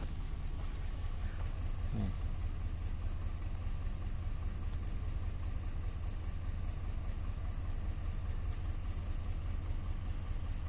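Dodge Ram's 5.7-litre Hemi V8 idling steadily, a low even rumble.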